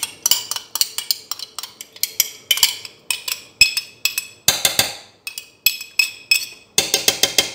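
Metal spoon clinking and scraping against a glass cup as thick tomato paste is scooped out and knocked off into the pot: a quick, irregular run of sharp clinks, two or three a second.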